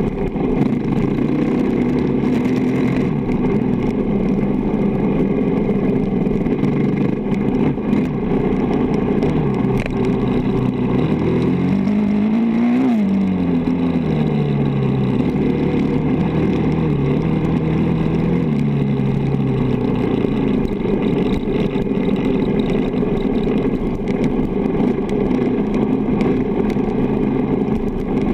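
Honda dirt bike engine running at speed on a desert trail. About twelve seconds in the engine pitch climbs quickly and falls back, then rises and falls again a few seconds later.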